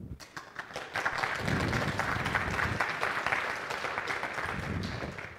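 Audience applauding, swelling about a second in and thinning out near the end.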